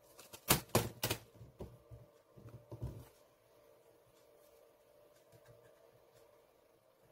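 Sharp clicks of a metal pick working at the seam of a Xiaomi power bank's plastic case while trying to pry it open: three loud clicks about half a second in, then lighter clicks and scraping that stop about three seconds in.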